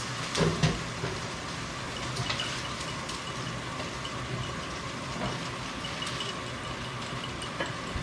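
Steady sizzling hiss of salmon fillets frying in a skillet, with a few light clicks of a spoon stirring in a small bowl.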